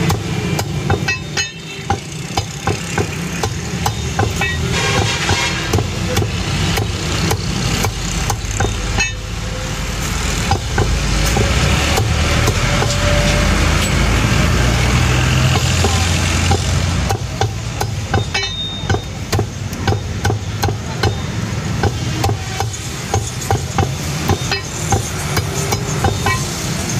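A meat cleaver chopping chicken on a wooden stump block: a run of sharp knocks, several a second. A low rumble swells for several seconds in the middle.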